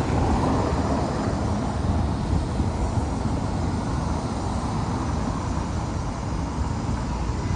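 City road traffic: cars driving past on a cobbled street, a steady rumble of engines and tyres.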